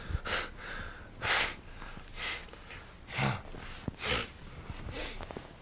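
A man's breathy huffs and snorts through nose and mouth: about five short puffs of breath, roughly a second apart, with a faint voiced grunt in one of them.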